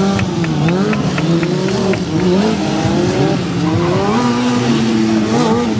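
Stunt motorcycle engine revving, its pitch rising and falling again and again, then held steadier and a little higher near the end.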